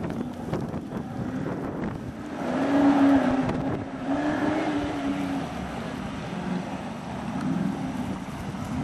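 Off-road 4x4 engine revving up and easing off several times as it drives a dirt course, loudest about three seconds in.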